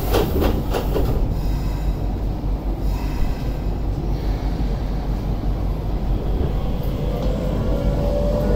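Keisei 3700 series commuter train heard from inside the car: a few sharp knocks in the first second, then a steady low rumble. Near the end the VVVF traction inverter's whine starts, rising slowly in pitch as the train pulls away from the station.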